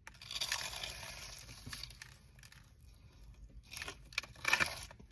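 Crispy crunching of a bite into a Cheeto-dust-coated Korean corn dog: a long crackly crunch over the first two seconds, then two shorter crunches near the end.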